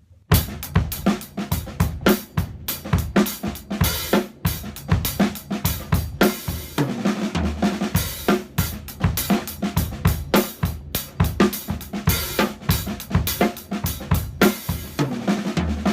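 Acoustic drum kit playing an accented 7/4 groove on snare, bass drum and cymbals, with two drum breaks, one about midway and one near the end, that bring in low ringing drum notes.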